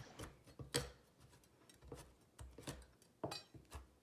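Cleaver chopping dried shrimp on a plastic cutting board: faint, irregular taps of the blade through the shrimp onto the board.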